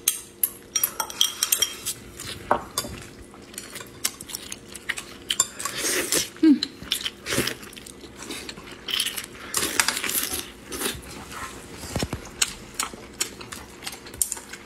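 Chopsticks and spoons clicking and clinking against ceramic bowls and plates at a meal, in an irregular run of short clicks, with a few brief eating noises in between.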